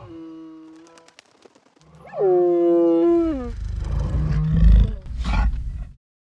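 Sound effect of wild animal calls on a logo outro: a long, clear call that holds its pitch, dips, then sweeps sharply upward at its end, over a low steady drone. It is followed by a deep rumbling growl and a whoosh that cut off abruptly about six seconds in.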